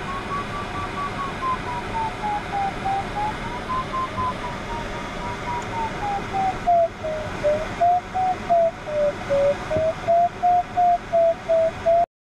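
Glider's audio variometer beeping, its tone rising and falling in pitch as the climb rate changes, over the steady rush of airflow around the cockpit. The beeps become more separate, about two a second, in the second half, and the sound cuts off suddenly near the end.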